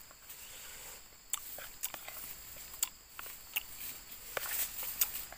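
Eating sounds: a metal spoon clicking and scraping on a plastic plate as food is scooped up, a few sharp clicks roughly a second apart, over a steady high drone of insects.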